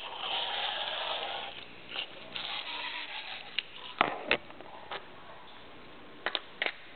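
Rustling, then a string of sharp clicks and knocks from handling a small plastic wind-up toy train and its packaging, the loudest about four seconds in.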